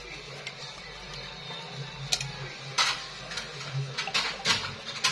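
Kitchen utensils and cookware knocking and clinking: a handful of sharp strikes, mostly in the second half, over a low steady hum.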